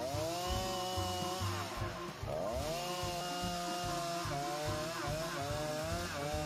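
Two-stroke chainsaw revving and cutting into a fallen konara oak log, shaving away its soft rotten wood. The engine pitch rises and holds, sags about two seconds in, then climbs again and wavers as the chain bites.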